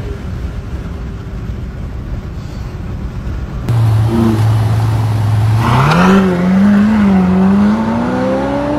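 Low road noise inside a moving car. About four seconds in it gives way to a Novitec-tuned Ferrari F8 Tributo's twin-turbo V8 idling steadily. Near the middle it gives a brief loud rasp and the car pulls away, its engine pitch wavering, then rising through the revs.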